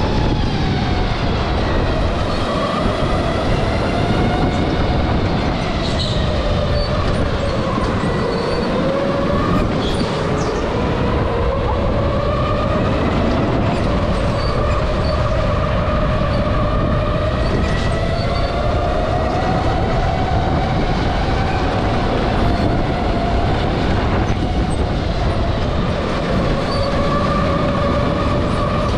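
Electric go-kart's motor whining, its pitch rising and falling as the kart speeds up and slows through the corners, over a steady rushing noise.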